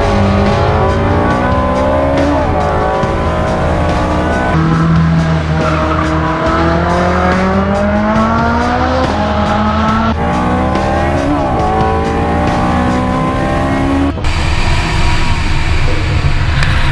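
Ferrari engine at hard throttle on a circuit, its note climbing steadily and dropping suddenly at each upshift, in several spliced takes. Near the end it gives way to a rougher, less tuneful car sound with some tyre squeal.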